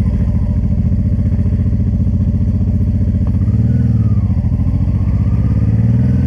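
Honda Transalp 600 V-twin motorcycle engine running under way at low speed, its exhaust pulsing in a fast, even beat. The engine note gets a little stronger about halfway through.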